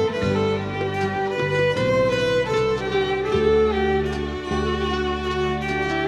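Solo violin bowing a slow melody of long held notes, over a backing accompaniment whose low sustained bass notes change about once a second.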